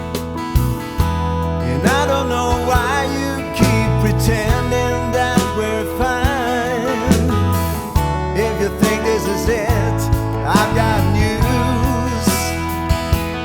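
Band music with bass and a steady drum beat, and a wavering melody line with vibrato that enters about two seconds in and comes and goes.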